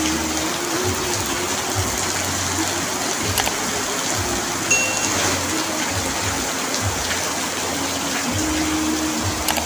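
Heavy rain drumming steadily on an asbestos (fibre-cement) sheet roof, with a few sharper drop ticks and a brief faint ringing tone about five seconds in.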